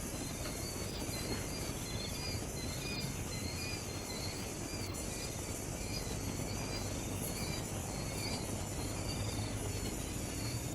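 Steady outdoor hiss with short, high chirps repeating throughout.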